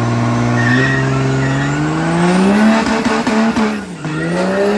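Ram pickup truck's engine revving hard, its pitch climbing steadily for about two and a half seconds, dropping briefly near the end and rising again, while the rear tires spin and squeal against the concrete in a smoky burnout turn.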